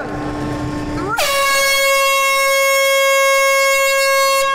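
Handheld compressed-air horn blown in one long, loud blast. It starts about a second in with a quick upward swoop, holds one steady note for about three seconds, then cuts off.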